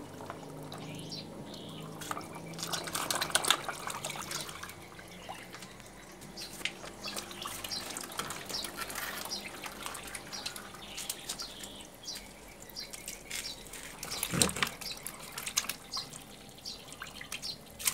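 Catfish splashing and slurping at the surface of a crowded plastic tub as they snap up feed pellets, a busy patter of small splashes and drips, with one louder knock about three-quarters of the way in.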